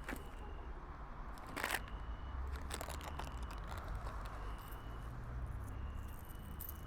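Scattered footsteps and small crunching clicks over a steady low rumble, with a faint high chirp coming and going.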